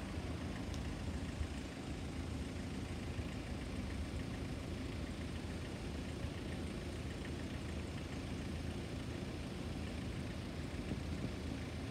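Steady low rumble of road vehicle engines, without rises or breaks.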